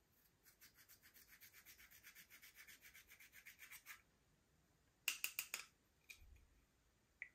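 Quick, even rubbing or scraping strokes, about eight a second for some three and a half seconds. About a second later come four sharp clicks in quick succession, then a couple of faint clicks.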